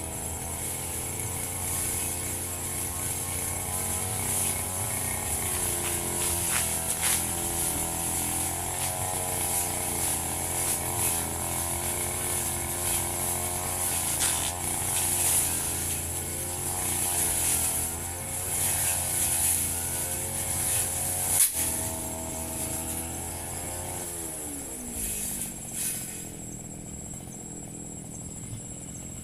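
Firman FGB 528 two-stroke brush cutter engine running, its revs rising and falling a little as it cuts grass. About two thirds of the way through it winds down, its pitch falling until it stops, leaving the steady high chirring of insects.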